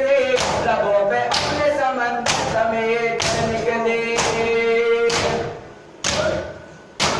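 A noha chanted by a single reciter, with mourners beating their chests in unison (matam) about once a second. The chanting stops about five and a half seconds in while the beats carry on.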